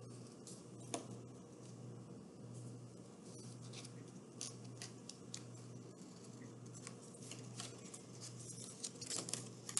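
Faint scratching of a marker tracing a star stencil onto felt, in short irregular strokes, with rustling of the felt sheet as it is handled near the end. A steady low hum runs underneath.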